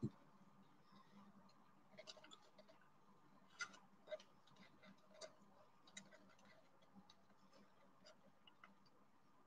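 Near silence broken by a soft knock at the start and then scattered small clicks and taps from handling a plastic piping cone standing in a glass jar.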